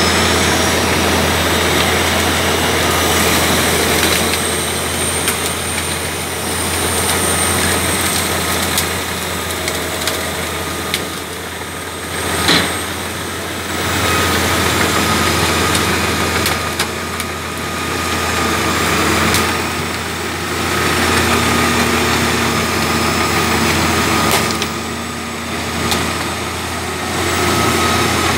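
Heavy diesel machinery running steadily: an Albach Diamant 2000 wood chipper chipping brash while a loading shovel with a grab feeds it. The sound swells and eases every few seconds as the load changes, with a sharp crack about twelve seconds in and a lighter one near the end.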